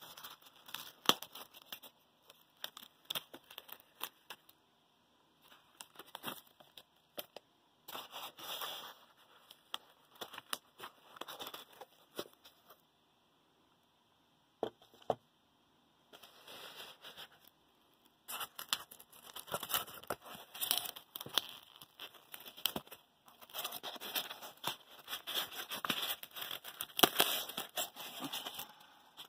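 Polystyrene foam insulation being handled and pulled apart: foam pieces rubbing and scraping with crinkling plastic wrap and sharp clicks, in irregular bursts with short pauses, busiest in the second half.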